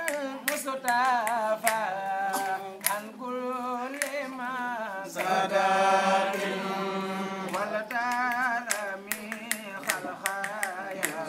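Islamic devotional chanting in Arabic: voices singing a wavering, ornamented melody, with sharp percussive taps scattered through it.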